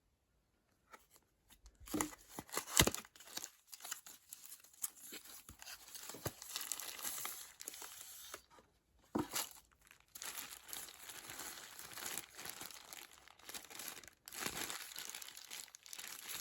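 Packaging being torn open and crinkled by hand to unwrap a makeup eraser cloth, starting about a second in, with a few sharp snaps among the rustling.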